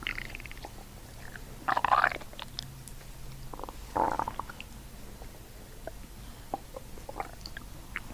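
Stomach and intestinal gurgling during abdominal manipulation with the patient belly breathing: two louder gurgles about two and four seconds in, with short faint clicks between.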